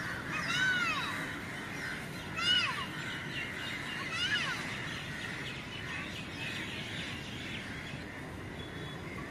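Many birds chirping and calling, with a few louder arching calls in the first half, about half a second, two and a half seconds and four seconds in, over a steady background of outdoor noise.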